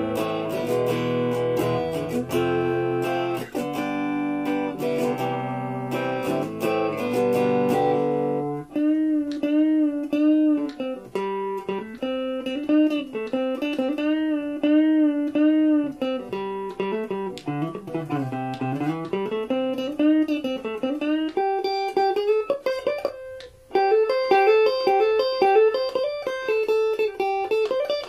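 Stratocaster-style electric guitar playing: strummed chords for about the first eight seconds, then single-note lines with wavering vibrato, a run that falls and climbs back, and repeated higher notes near the end.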